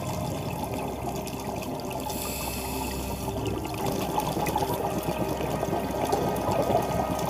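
Churning, bubbling water noise, muffled and mostly low-pitched, as picked up by a diver's camera in the water.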